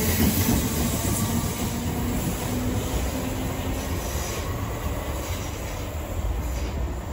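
Class 456 electric multiple unit pulling away and receding: its wheels rumble on the track and a low traction motor hum fades out in the first few seconds, the whole sound slowly dying away.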